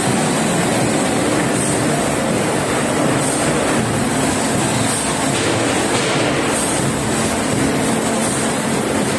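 A 4-foot veneer peeling line running: a loud, steady mechanical noise with a low hum, from the rotary peeling lathe and conveyor as veneer sheets come off.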